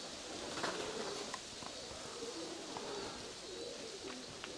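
Domestic pigeons cooing, a run of short, low coos overlapping one another.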